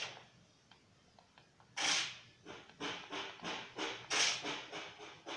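Rhythmic breathy panting, about three breaths a second, broken by two louder huffs about two seconds in and just past four seconds.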